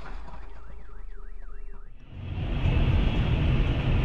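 A car alarm wailing, its tone sweeping up and down about three times a second. It cuts off about two seconds in, giving way to the steady rush and low rumble of a car driving through heavy rain.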